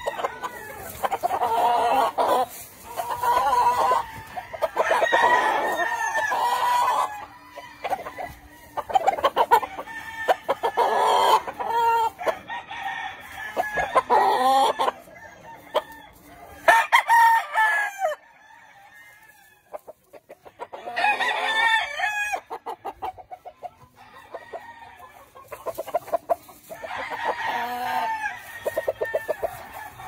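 Gamefowl roosters crowing again and again, one crow after another, with clucking in between.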